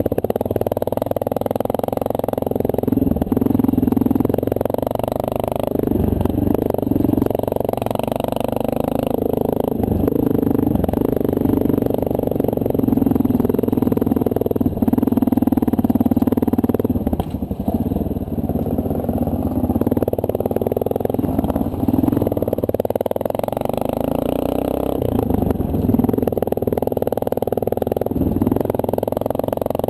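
Honda CRF230L dual-sport motorcycle's single-cylinder four-stroke engine running under way, its note rising and falling and dropping briefly every few seconds.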